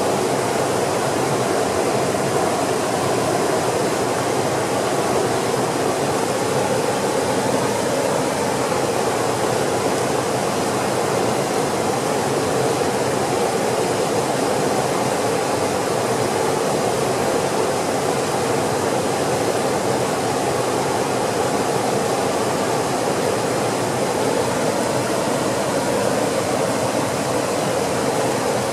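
Mountain creek rushing through rapids and small cascades over rock ledges: a steady, unbroken rush of white water.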